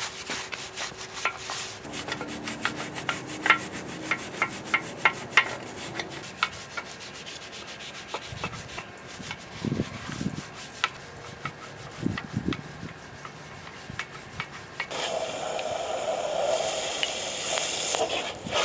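Brass wire brush scrubbing a cast-iron Ford 5.0 HO V8 engine block, in many quick, uneven scratching strokes. About fifteen seconds in, a hot-water spray from a hose nozzle starts and hisses steadily against the block as it is rinsed.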